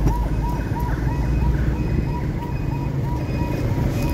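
An electronic siren-like alarm sounds in short dipping chirps, about three a second, over the steady low rumble of highway traffic.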